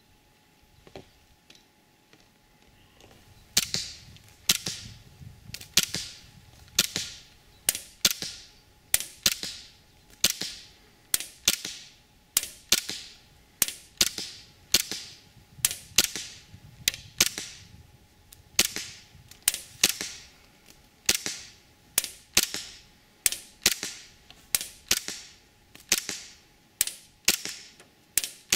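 WE Tech Glock 17 Gen 4 full-metal gas blowback airsoft pistol firing a long string of single shots, roughly one a second. Each shot is a sharp crack. The shooting starts a few seconds in.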